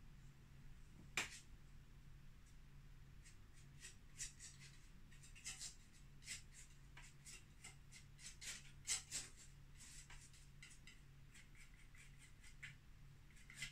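Faint scratchy painting strokes on a canvas in quick irregular runs, with one sharper tap about a second in, over a low steady hum.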